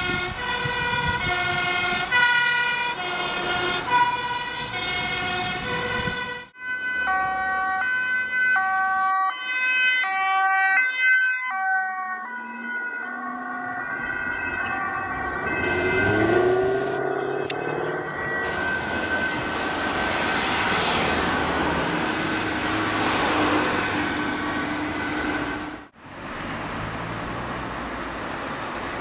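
Two-tone emergency vehicle sirens alternating steadily between a high and a low note: a fire engine's first, then after a sudden cut about six seconds in, an ambulance's. In the second half the sirens give way to a vehicle passing close and steady road traffic.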